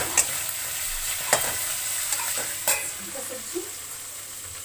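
Chopped green vegetables sizzling as they are stir-fried in a metal kadhai, with the stirring utensil clicking against the pan three times. The sizzle gets a little quieter after about three seconds.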